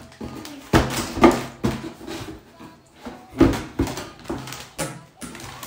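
Foil crisp bag crinkling and potato chips crunching as they are bitten and chewed: a run of sharp, uneven crunches and rustles, loudest about a second in and again just after three seconds.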